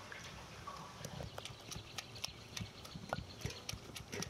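Pomegranate arils being sorted by hand in a perforated stainless steel colander and basin: irregular light clicks and taps of seeds and fingers against the metal.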